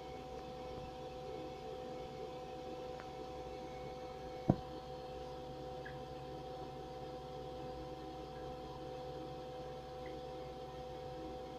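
Steady electrical hum of a running egg incubator, with a single sharp click about four and a half seconds in.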